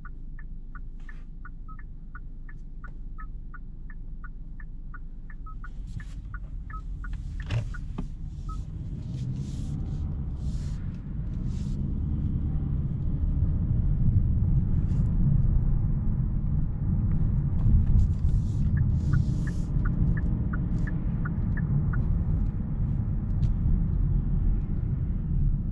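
Inside the cabin of a Kia K8 with the 2.5-litre four-cylinder: a turn-signal indicator ticks steadily, about two to three ticks a second. From about eight seconds in, engine and road noise build and grow louder as the car pulls away and gathers speed. The indicator ticks again for a few seconds later on.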